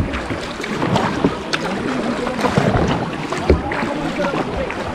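Kayak paddling on a river: paddle strokes splashing and water sloshing against the hull, with short knocks scattered through and wind buffeting the microphone.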